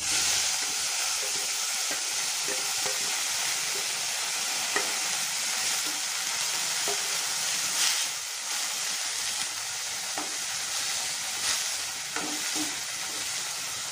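Washed dill and fenugreek leaves sizzling in hot oil in a metal wok, stirred with a wooden spatula that taps and scrapes the pan now and then. The sizzle starts suddenly as the greens go into the oil and runs steadily, easing a little near the end.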